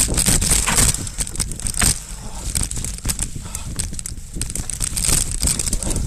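Mountain bike riding over a rooty, leaf-covered singletrack: tyres crunching through dry leaf litter, with a dense run of irregular clicks and rattles from the bike jolting over roots and rocks.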